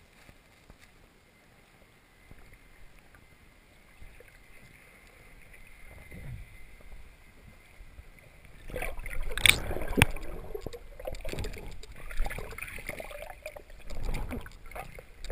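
Muffled underwater sound from a camera held below the surface of a shallow lake: a faint hiss at first, then from about nine seconds louder sloshing and rumbling of moving water, with two sharp knocks about nine and a half and ten seconds in.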